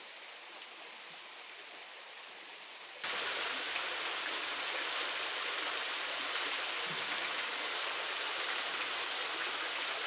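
Waterfall rushing steadily, running with plenty of water. About three seconds in it jumps suddenly louder and fuller, then stays steady.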